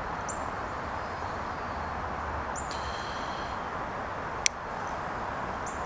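Needle-nose pliers working a small fishing hook, with one sharp click about four and a half seconds in, over a steady outdoor hiss. A bird chirps twice.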